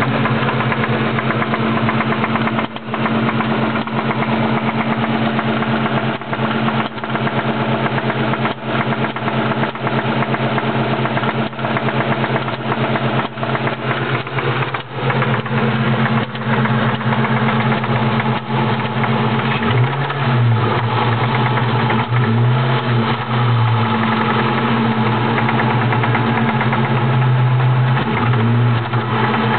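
Ford Mustang Mach 1 engine running with a repeated rattling and ticking knock, the unknown noise that the owner wonders may be rod knock. In the second half the engine's pitch rises and falls a few times.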